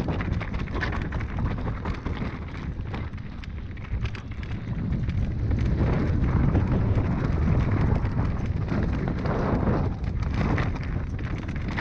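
Mountain bike descending a steep, rocky trail: tyres crunching and rattling over loose stones and the bike clattering, with wind buffeting the microphone. The rattle grows louder about halfway through.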